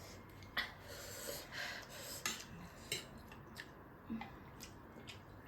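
Close-up eating sounds from chicken wings: chewing and mouth smacks, with a string of short, sharp clicks and taps.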